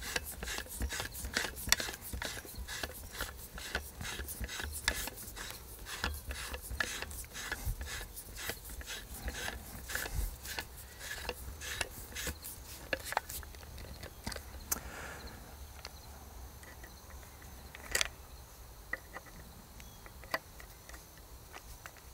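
Ratcheting torque wrench clicking about three times a second while tightening a switch-barrel rifle's switch lug to its 30 inch-pound spec. After about 13 seconds the clicking thins out to a few scattered clicks, with one sharper click later on.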